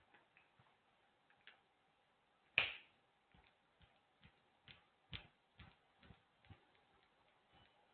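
Near silence broken by faint, irregularly spaced clicks and taps, with one louder sharp knock about two and a half seconds in.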